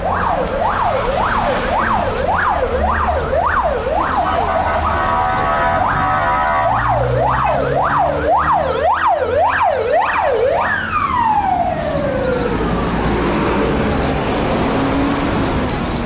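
Emergency-vehicle siren sounding on the street: a fast yelp sweeping up and down about twice a second, broken by a couple of seconds of steady blaring tone, then yelping again before winding down in one long falling glide about eleven seconds in. Traffic rumbles underneath.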